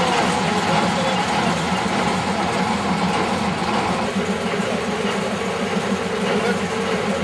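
TU7 narrow-gauge diesel locomotive's engine idling steadily.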